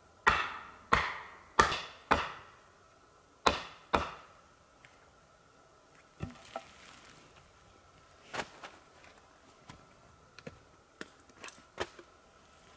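Wood being chopped: six hard blows in the first four seconds, four in quick succession and then two more after a short pause, each ringing out briefly. Lighter scattered knocks and clicks follow.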